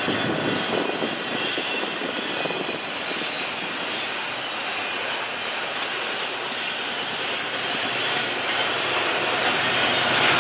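Double-stack intermodal container cars of a CSX freight train rolling past: a steady rumble and rush of steel wheels on rail, growing louder near the end.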